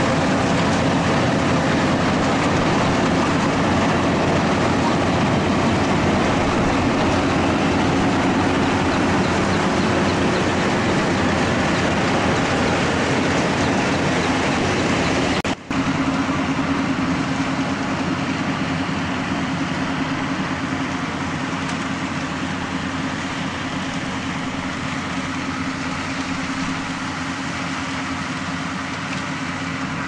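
Yanmar AW82GV rice combine harvester running while cutting rice: a steady diesel engine drone with a held hum over a dense mechanical rush from its cutting and threshing works. After a brief drop-out about halfway, it grows gradually fainter as the machine moves away.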